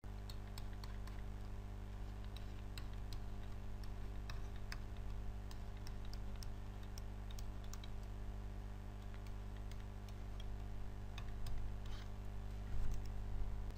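Faint, irregular clicks and taps of a stylus on a drawing tablet as handwriting is put down, over a steady low electrical hum.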